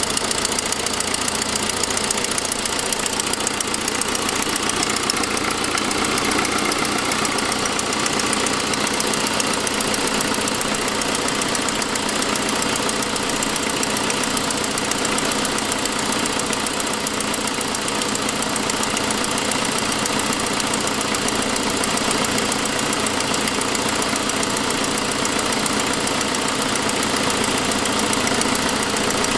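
2006 Saab 9-5 engine idling steadily with a rapid, even ticking. The tick is an exhaust leak at the header from a broken forwardmost exhaust stud, which sounds much like lifter noise.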